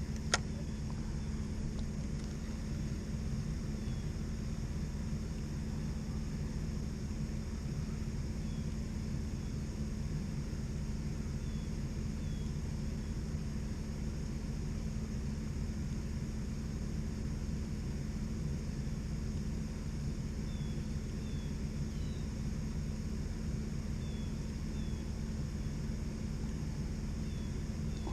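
Steady low mechanical hum, with faint short bird chirps every few seconds and a single sharp click right at the start.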